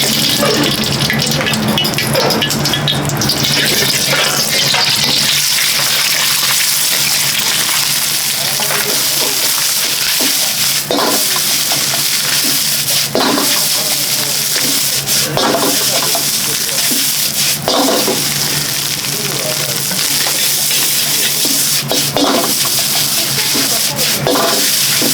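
Fried rice being stir-fried in a wok over high heat: continuous loud sizzling, with the metal ladle knocking and scraping against the wok every couple of seconds, over a steady low hum.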